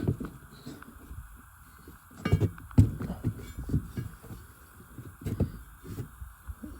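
Irregular clunks and light clinks of metal intake parts being handled and set down, with a couple of sharper knocks about two and a half seconds in.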